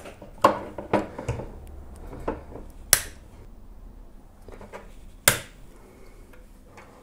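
Plastic pen barrel being cut into short tubes with a blade and handled on a wooden desk: a series of light clicks and knocks, with two sharp snaps about three and five seconds in.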